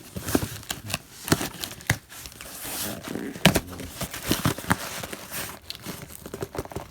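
A cardboard shipping box being opened by hand: crinkling and tearing of tape and packing material, with scattered sharp taps and knocks.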